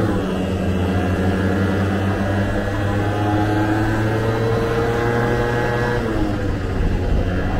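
Vespa scooter engine running under way, its pitch climbing steadily for a few seconds as it accelerates, then falling back sharply near the end.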